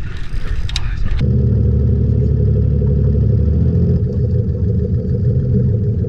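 Boat engine running steadily, starting abruptly about a second in after a short stretch of clattery noise.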